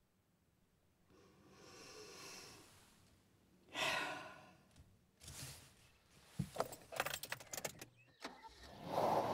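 A woman's breath drawn in and let out in a heavy sigh, then a quick run of clicks and rattles from a car seatbelt buckle being released. Near the end a steady rush of noise starts.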